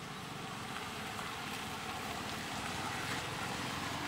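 Steady outdoor background hum and hiss with no distinct event, slowly growing a little louder.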